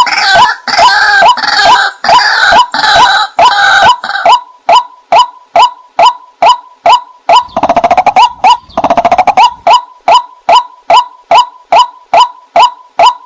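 White-breasted waterhen calls used as a hunting lure: short downward notes repeated evenly about two and a half times a second. A denser run of overlapping calls fills the first four seconds, and a rattling, croaking stretch comes about eight seconds in.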